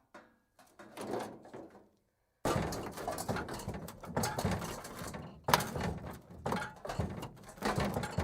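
Metal car hubcap clattering on concrete: a short rattle at first, then after a brief gap a longer rolling, spinning clatter with sharp metallic hits, loudest about five and a half seconds in.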